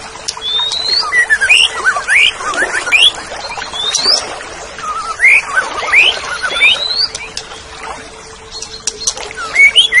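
Orange-headed thrush in continuous full song: a quick run of varied rising whistles, sweeping notes and short chirps with barely a pause between phrases, over a faint steady hum.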